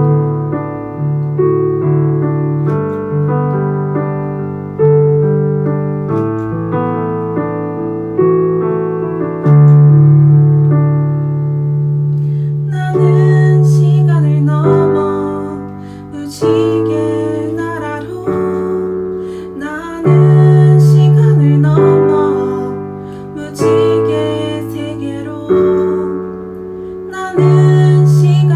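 Piano accompaniment to a self-composed children's-style song in Korean. Chords change every second or two, and a singing voice comes in about halfway through, over the piano.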